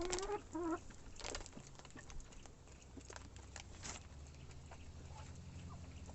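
Chickens feeding on scattered maize: a short pitched cluck at the start, then scattered light taps as they peck.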